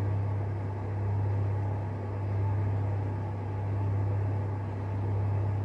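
Steady hum of a room heater running: a constant low drone with an even hiss over it, gently rising and falling in level.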